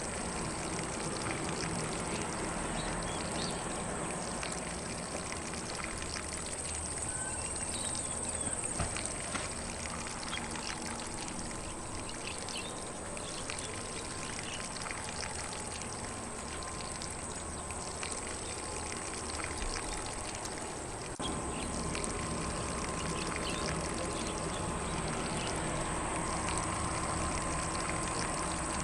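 Lawn sprinkler spraying water over grass in a steady, continuous hiss, with faint birdsong in the distance; it grows slightly louder about two-thirds of the way through.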